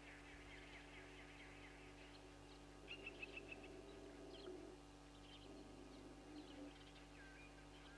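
Faint wild bird calls: scattered short chirps, with a quick run of about six short, even notes about three seconds in, over a low steady hum.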